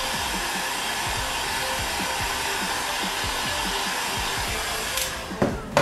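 Heat gun blowing steadily as it softens a sheet of Worbla thermoplastic, cutting off with a couple of sharp clicks near the end.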